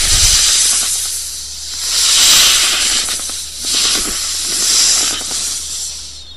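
Snake hissing: long breathy hisses that swell and fade, loudest about two, four and five seconds in, then cut off suddenly at the end.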